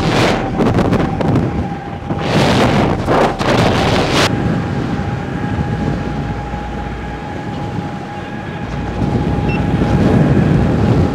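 Wind buffeting a microphone moving at road speed, with strong gusts near the start and from about two to four seconds in, over a steady rush of wind and road noise and a thin constant whine.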